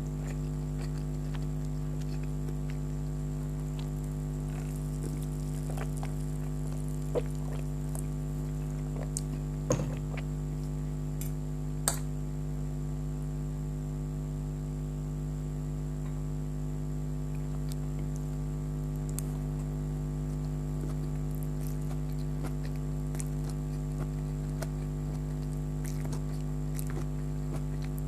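Close-miked eating of chicken hakka noodles: soft chewing and mouth sounds with scattered small clicks, a few of them sharper, over a steady electrical hum.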